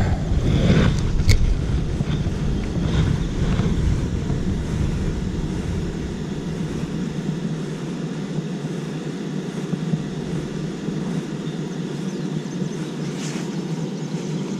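Wind buffeting the microphone, a steady low rumble that eases about halfway through as its deepest part drops away.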